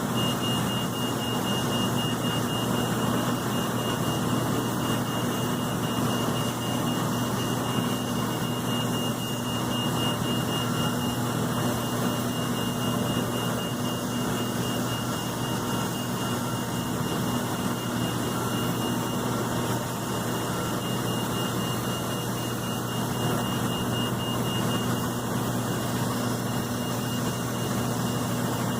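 Airbus A330-223's Pratt & Whitney PW4000 turbofans running steadily, a low rumble with a constant high whine over it.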